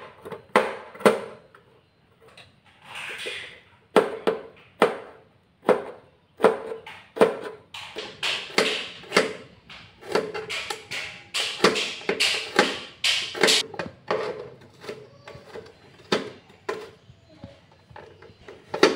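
Kitchen knife chopping peeled garlic cloves on a plastic cutting board: a run of irregular knocks of the blade against the board, coming quicker and denser in the middle stretch.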